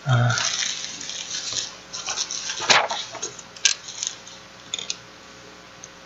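Plastic mailer bag crinkling and rustling as it is handled and opened, with one louder sharp crackle about three seconds in and a few light clicks after it.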